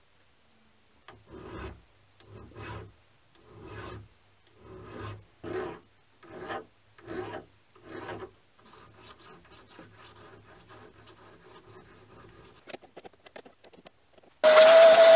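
A hand file stroked along the edge of a freshly milled lathe toolpost slot, deburring it: about eight slow, separate strokes, then lighter, quicker rubbing strokes and a few clicks. Near the end a vacuum cleaner switches on loudly with a steady whine.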